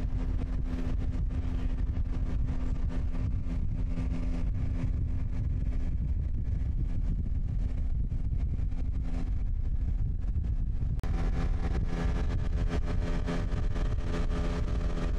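Johnson V6 outboard motor running steadily at speed, with the boat running across the water and wind on the microphone. About eleven seconds in there is a brief break, after which the engine tone sounds fuller.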